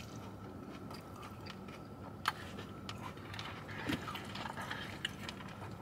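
Faint chewing and mouth sounds of someone eating, with scattered soft clicks, one sharper about two seconds in.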